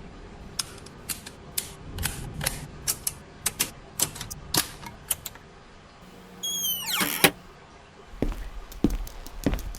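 Irregular sharp clicks and taps, with one short squeal falling steeply in pitch about seven seconds in.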